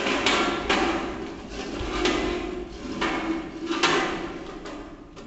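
Loud rustling with several sharp knocks close to the microphone, the sound of a handheld camera and clothing being jostled as someone moves right next to it.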